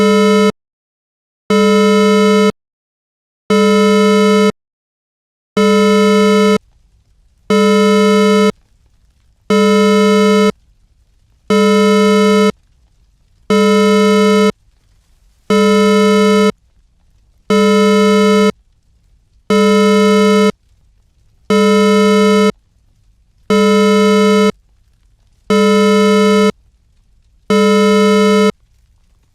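Synthetic emergency alert alarm: a harsh, buzzy two-tone beep repeating steadily, about one second on and one second off. From about five seconds in, a faint low rumble fills the gaps between beeps.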